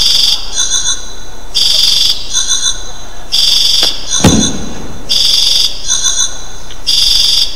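Loud, alarm-like electronic beeping played over a hall's sound system as part of a demo's soundtrack: a long buzzing beep about every 1.8 seconds, with a shorter, thinner beep between each pair. A single thump about four seconds in is the loudest moment.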